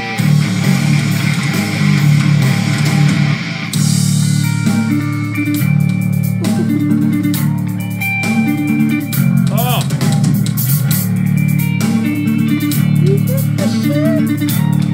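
Instrumental metal band playing hard and fast: electric guitar, electric bass and drum kit, with bending guitar notes about ten seconds in and again near the end.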